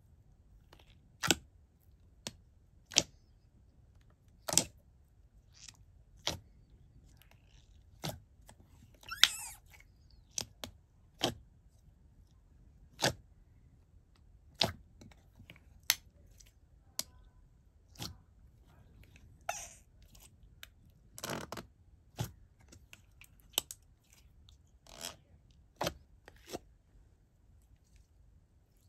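Fingers poking and pressing into a wet, jiggly clear slime in a plastic jar, making irregular sharp wet pops and squelches about once or twice a second, with two longer squelches.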